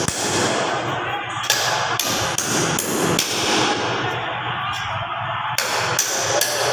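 Repeated hammer strikes in an irregular series, a few close together, then a pause of about two seconds, then more, over steady background noise.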